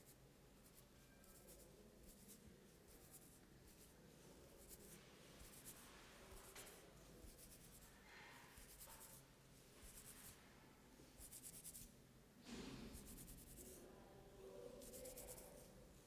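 Faint, scratchy rubbing of hands over hair and scalp during a head massage: a run of soft swishing strokes, about one every half second to a second, with one louder, fuller stroke about twelve seconds in.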